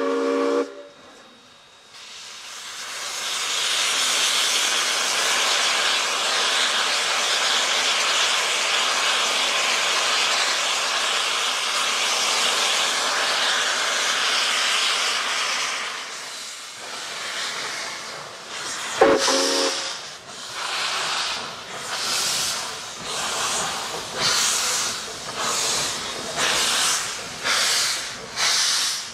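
A steam locomotive's whistle cuts off in the first second, followed by a long, steady hiss of steam. After a short whistle blast about two-thirds of the way through, the exhaust starts to chuff at about one beat a second, gradually quickening as the locomotive gets under way.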